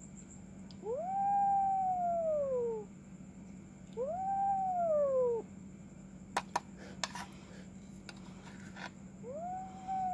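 Cat giving long, drawn-out meows, three in all: about a second in, about four seconds in, and one starting near the end. Each rises quickly and then slides down over about two seconds. A few sharp clicks come between the second and third meows.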